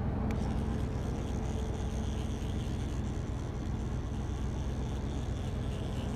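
A motor vehicle running steadily: a constant low engine rumble under an even hiss, with no change in pace.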